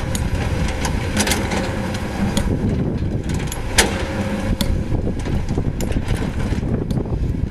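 Caterpillar 320D excavator's diesel engine running steadily under load while its bucket digs through broken breccia stone, with rock clacking and knocking against the steel bucket, one sharp knock about four seconds in.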